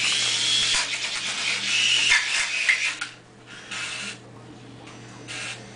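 Small toy remote-control helicopter's electric motor and rotor whirring, a high whine that rises and falls over a hiss for about three seconds, then two shorter bursts later on.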